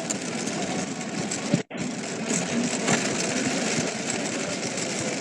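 Heavy rain drumming steadily on a car, heard from inside the cabin, with a brief gap about a second and a half in.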